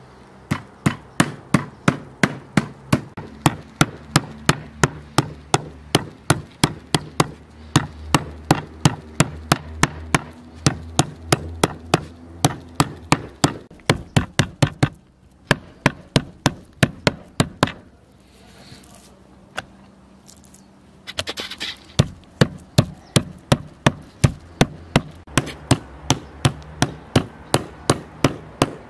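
Metal meat tenderizer mallet pounding slices of raw meat on a wooden cutting board: steady, evenly spaced blows about three a second, with a pause of about three seconds past the middle before the pounding resumes.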